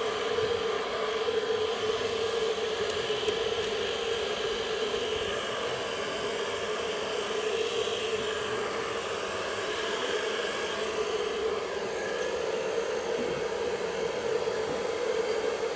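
Hand-held hair dryer running steadily, blowing air over a wet watercolour painting to dry it: an even rush of air with a steady hum.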